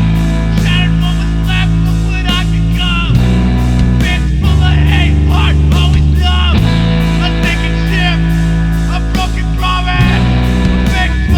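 Rock song: a heavy bass line changing notes every couple of seconds under guitar and a steady drum beat, with a wavering melodic line above.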